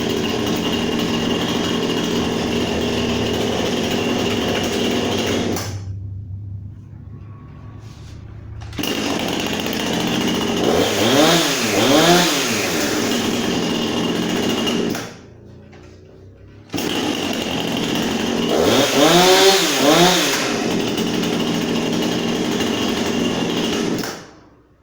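Husqvarna 455 Rancher chainsaw's two-stroke engine running on a new saw's first run, revved up and back down twice. It drops to two quieter spells along the way and stops near the end.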